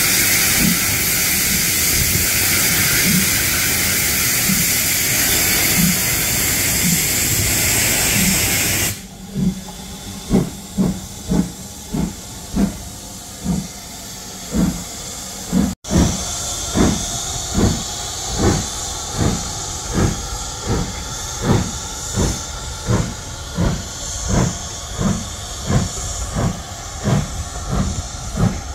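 LMS Stanier Mogul 2-6-0 steam locomotive No. 13268 pulling away: a loud hiss of steam from the open cylinder drain cocks with faint exhaust beats under it, then, after an abrupt cut about nine seconds in, its exhaust chuffing in distinct beats, about one and a half a second and quickening slightly.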